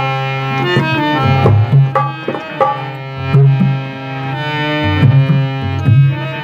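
Instrumental song intro: a harmonium plays a sustained melody over tabla drumming, with deep bass strokes that bend in pitch.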